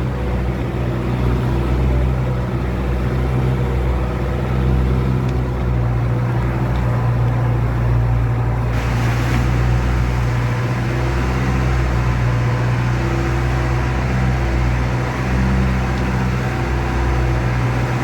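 Tour boat's engine running steadily at cruising speed, with a constant low hum and a hiss of wind and water over it that gets louder about halfway through.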